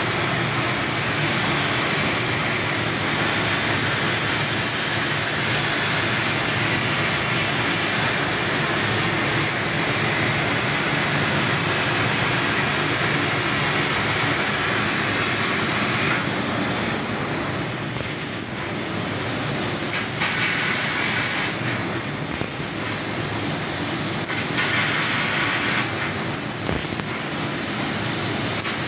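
6 kW laser cutting machine running a cut: a loud, steady hiss. In the last dozen seconds the upper part of the hiss drops away and comes back several times.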